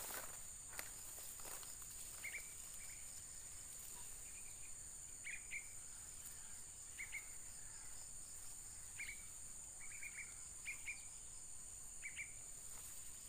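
Steady high-pitched drone of insects in swamp grass, with short chirps, often in pairs, repeating every second or two.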